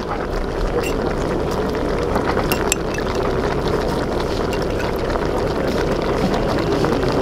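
Shell-out seafood sauce boiling and sizzling in a large steel wok as cornstarch slurry is poured in from a mug, a steady bubbling hiss with a few light clinks of the ladle against the wok.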